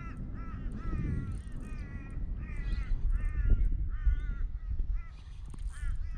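A bird calling over and over, short wavy calls about once or twice a second, over a steady low rumble.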